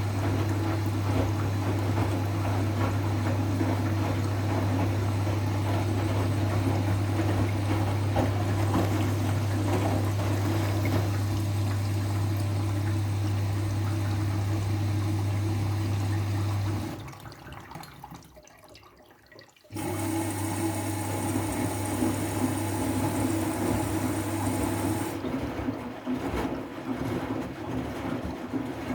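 Siemens i-Dos washing machine on its wool/delicate program, water rushing and splashing through it over a steady low hum. The sound drops away about two-thirds through, starts again about three seconds later, and the hum stops a few seconds before the end while the water sounds go on.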